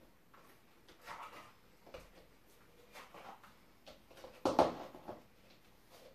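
Black stiletto high heels on a wooden floor: soft knocks and rustles as they are slipped off, then a sharper knock about four and a half seconds in as the pair is set down.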